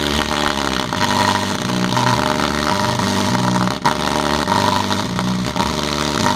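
Music played loud through a sound system under a bass test, a deep bass line stepping from note to note beneath a full mix.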